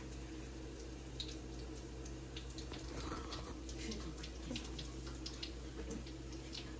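Hot cooking oil sizzling in a pan, a steady hiss with scattered small pops and crackles. The oil is heated and ready for frying.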